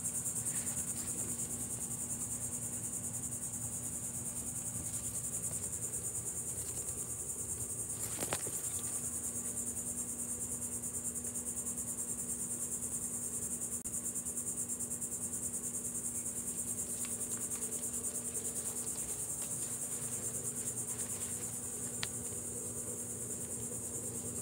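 Steady, high-pitched trilling of an outdoor insect chorus, with a couple of faint ticks.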